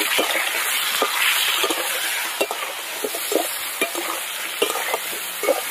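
Potato wedges frying in hot mustard oil in a wok, sizzling steadily while a metal spatula stirs them. The spatula knocks and scrapes against the pan at irregular intervals.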